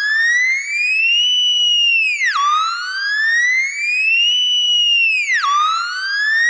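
Synthesized alarm siren: a single tone with overtones that rises slowly over about a second and a half, holds briefly at the top, then drops sharply back down, repeating about every three seconds.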